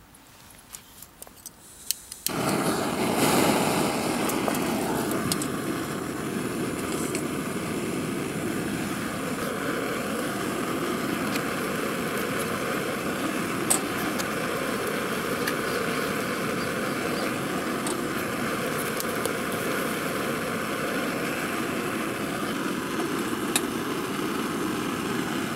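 A canister-top camping gas stove being lit: a few light clicks, then the burner catches about two seconds in and runs with a steady, loud rush of gas flame, with one or two faint clicks later on.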